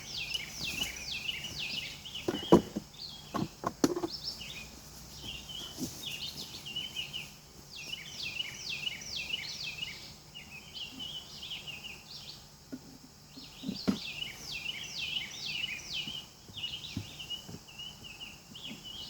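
A songbird singing repeated phrases of quick downward-sweeping notes and chirps, every few seconds. A few sharp wooden knocks come about two to four seconds in and again near fourteen seconds, as hive frames are handled.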